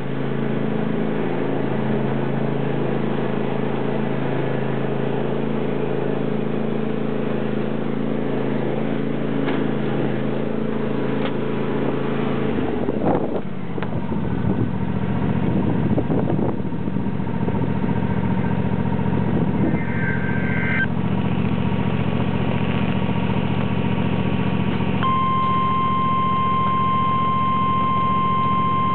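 John Deere tractor engine running steadily, its note shifting about halfway through. Near the end a weather radio's warning alarm starts, one steady high-pitched tone that holds, signalling an incoming severe weather warning.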